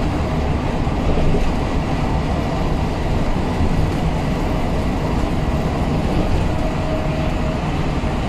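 Car driving along a highway at speed: a steady low rumble of tyres and engine.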